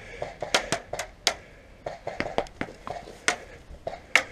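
Airsoft gunfire: about half a dozen sharp snaps at irregular intervals, most of them in the first half.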